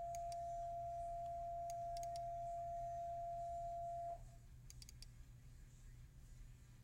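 Computer mouse clicks: a quick pair, then two quick runs of three, over a steady high-pitched tone that cuts off suddenly about four seconds in.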